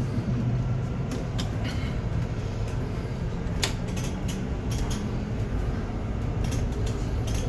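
Low, steady drone of a double-decker bus's engine and road noise heard inside the upper deck while the bus drives along, with scattered short clicks and rattles.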